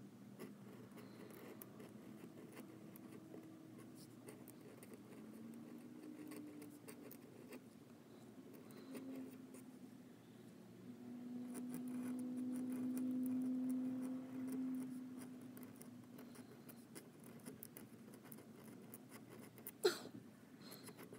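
A Jinhao fountain pen fitted with a Leonard Principal flex nib, scratching faintly across paper as script is written. About halfway through, a low steady hum rises over the writing for a few seconds, and there is a single sharp click near the end.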